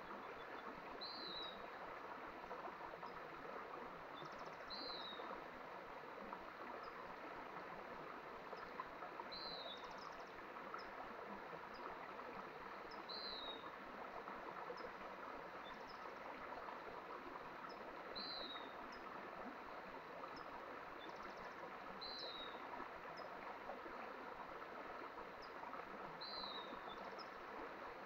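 Small mountain stream flowing steadily. Over it a bird repeats a short, high, slightly falling call about every four seconds.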